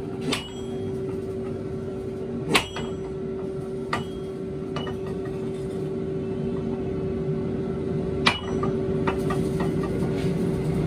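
Hammer strikes on red-hot iron over an anvil while an iron bar is forged into a ring: five or six sharp metallic blows, irregularly spaced, the loudest about two and a half seconds in. Underneath runs a steady mechanical hum with a constant tone.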